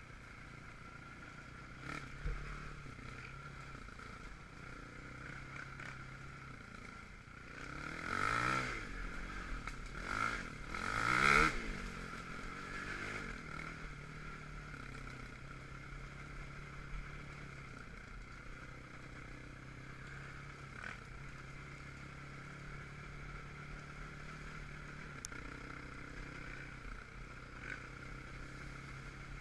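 Quad (ATV) engine running at a steady idle, revved up and back down twice, about a third of the way in. The second rev is the louder.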